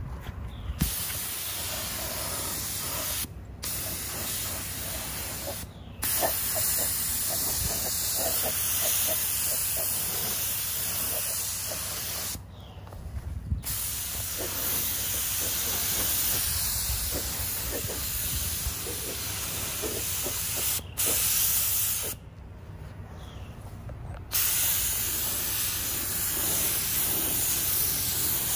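Compressed-air gravity-feed paint spray gun hissing as it sprays single-stage paint, stopping briefly about five times when the trigger is let go between passes.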